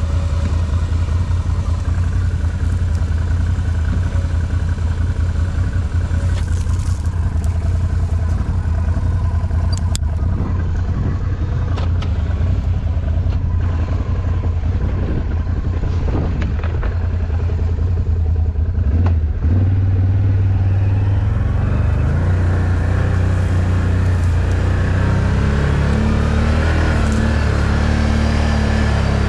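ATV engine running steadily while riding, with scattered knocks and clatter through the middle. About two-thirds of the way in the engine note steps up, and near the end it rises as it revs.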